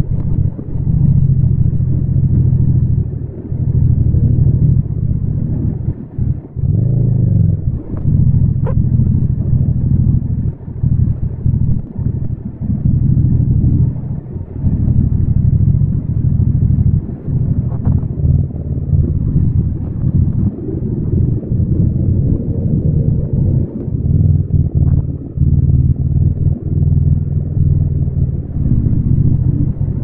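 Yamaha MT-07's 689 cc parallel-twin engine running under way, the throttle opening and closing so the engine note dips briefly every few seconds and then picks up again.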